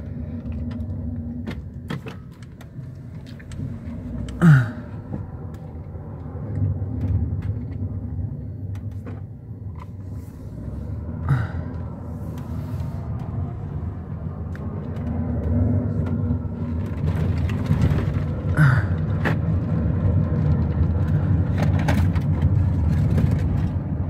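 Minivan driving, heard from inside the cabin: a steady low engine and road rumble that grows a little louder in the second half. A few brief louder sounds stand out about 4, 11 and 19 seconds in, the first the loudest.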